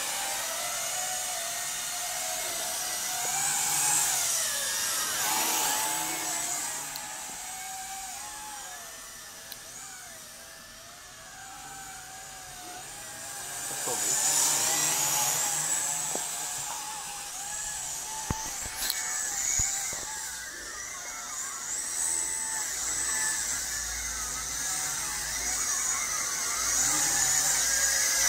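WLToys V666 quadcopter's motors and propellers whining in flight, the pitch wavering up and down as it manoeuvres and rotates. It grows louder for a while about a third of the way in and again towards the end.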